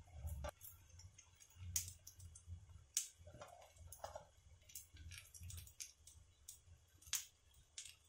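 Hot oil crackling faintly under besan-coated brinjal slices frying on a low gas flame: scattered sharp pops and ticks, roughly one every second or two.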